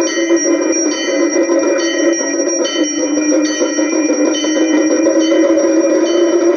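Metal temple bells rung over and over, their high ringing tones struck again every half second or so, over a dense, steady lower wash of music.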